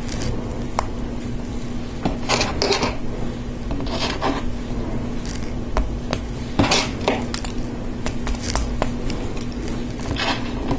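Small plastic LEGO Technic parts clicking and clattering as they are handled and snapped together, with pins pressed into beams and pieces picked from a pile. Scattered sharp clicks are mixed with short rattling scrapes.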